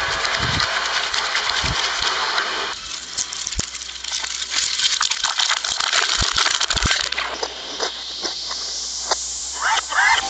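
Soda bottles being crushed in a twin-shaft shredder, played backwards. A dense fizzing hiss fills the first few seconds, then gives way to scattered clicks, snaps and crackles of plastic in the cutters, with a few brief gliding squeaks near the end.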